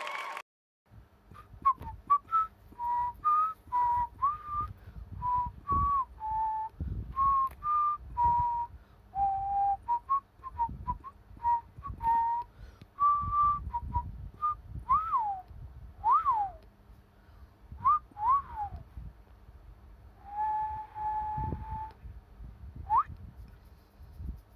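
A person whistling a tune: a string of short notes stepping up and down, with a few quick swoops in pitch in the second half.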